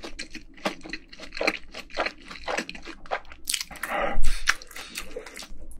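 A person chewing crunchy food close to the microphone: many irregular crunches and bites, with a louder, wetter bite about four seconds in.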